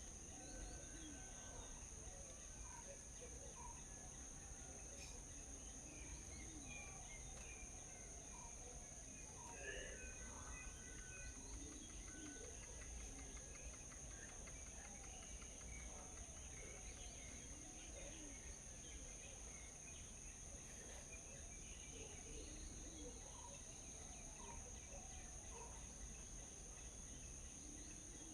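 Faint morning ambience: scattered bird chirps and calls over a steady, high-pitched insect drone.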